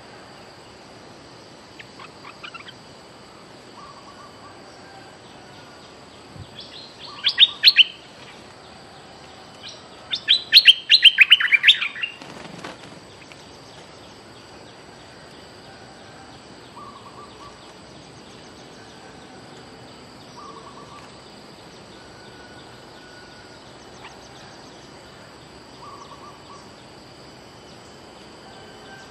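Bulbuls calling: two bouts of loud, rapid, sharp chattering notes, the second one longer, with soft short call notes now and then in between.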